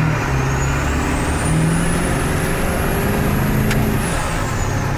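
Ford 7.3 L Powerstroke turbo-diesel V8 accelerating under load, heard from inside the cab. The turbo whistle rises steadily in pitch, then falls away about four seconds in.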